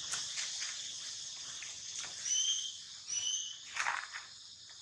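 Steady high-pitched drone of insects, with two short high chirps a little after two and three seconds in, and a brief rustle of dry leaves near the end.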